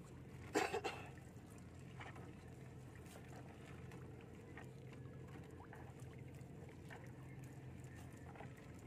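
Fishing net hauled by hand into a wooden outrigger canoe: water dripping and small splashes and clicks from the wet net, with one brief louder noise about half a second in, over a low steady hum.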